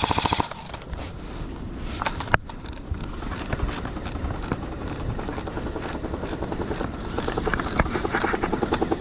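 Clothing and gear scraping and rustling against a chest-mounted camera as the wearer moves, with scattered clicks and knocks and a run of rapid ticking near the end.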